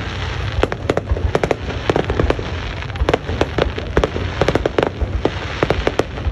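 Aerial fireworks going off in quick, irregular succession: sharp bangs and crackles several times a second over a steady low rumble.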